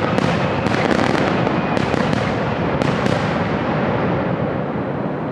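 Aerial fireworks going off in a dense barrage: a continuous rolling rumble of shell bursts, with several sharp cracks in the first three seconds. The barrage thins out and dies down over the last two seconds.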